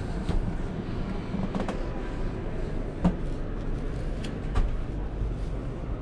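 Busy trade-fair hall background noise: a steady low rumble with a few sharp knocks and clicks scattered through it.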